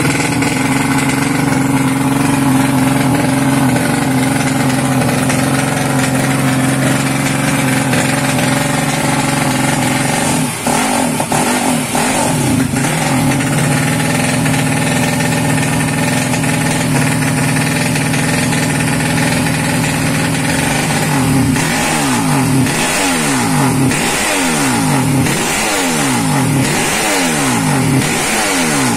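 A racing dirt bike's engine idling steadily, then revved. In the last third the throttle is blipped over and over, the engine note rising and falling about once a second.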